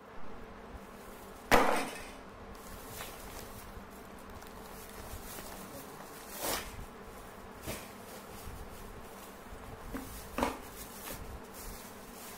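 A plastic carrier bag and a cardboard box being handled on a wooden bench: a few short knocks and crinkles, the loudest about one and a half seconds in, over a steady faint hum.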